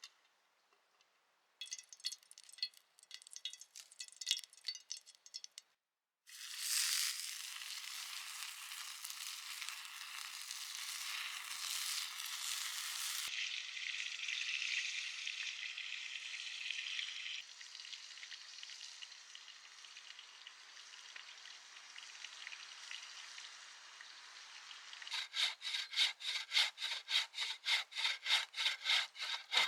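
Food sizzling in a pan over a fire, a steady hiss that cuts in suddenly after a few seconds of rhythmic scraping and drops in level twice. Near the end, a hand saw cuts wood in quick strokes, about four a second.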